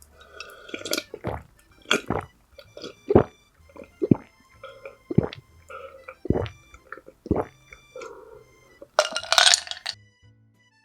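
Close-miked eating sounds: sharp bites and chewing about once a second, with a louder, noisier mouth sound near the end, over soft background music.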